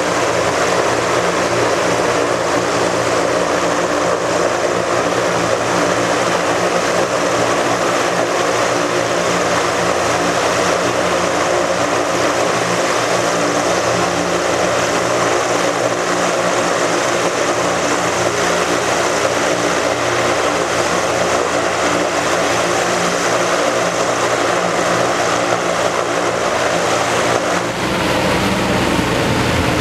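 Zeppelin NT airship's propeller engines running close by, a loud, steady drone; the sound changes abruptly near the end, with more low rumble.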